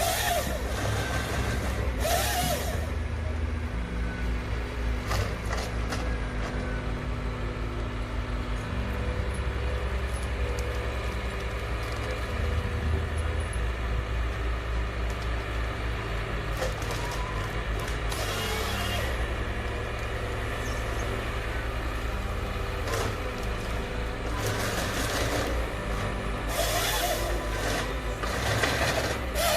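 Heavy diesel machinery running steadily, with several short hissing blasts of noise over the engine.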